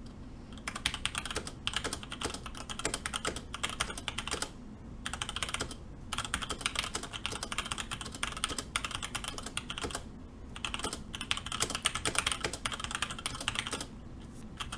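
Fast typing on a James Donkey 619 mechanical keyboard with Gateron Red linear switches and ABS cherry-profile keycaps: quick runs of key clacks, broken by a few short pauses.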